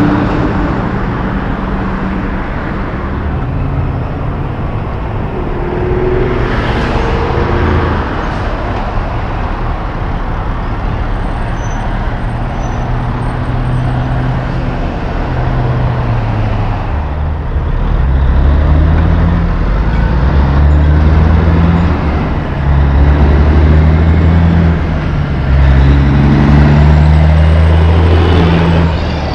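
Heavy Class 8 diesel trucks passing one after another on a city road, engines and tyres rumbling over steady traffic noise. In the second half a truck's engine drone rises and falls in pitch in steps as it pulls through its gears.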